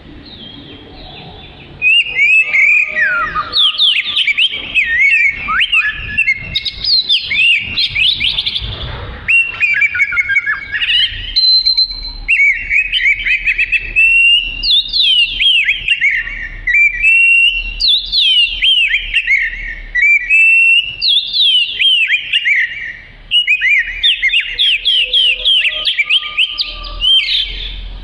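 Oriental magpie-robin singing a loud, almost unbroken song of rapid whistled phrases, full of sharp downward-sliding notes repeated in quick runs. It starts about two seconds in and pauses briefly once near the end.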